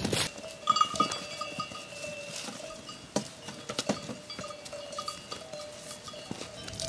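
Bells on grazing livestock ringing and clanking irregularly, with scattered light clicks.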